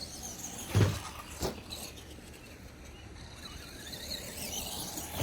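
Radio-controlled 1/10 FMS Ford F100 monster truck driving, its electric motor whining up and down, with two sharp thumps about a second in and another near the end.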